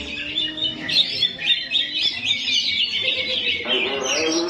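A songbird singing a fast, continuous run of chirps and trills. A steady humming tone joins underneath about three and a half seconds in.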